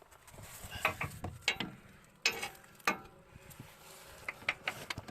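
Metal hand tools clicking, scraping and knocking against a serpentine belt's automatic tensioner, in irregular bursts with short metallic rings, while a temporary spacer is worked out so the tensioner can spring into its working position.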